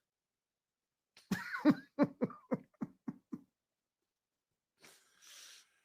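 A man laughing: a run of about eight short, evenly spaced "ha" bursts that fade out, followed near the end by a faint intake of breath.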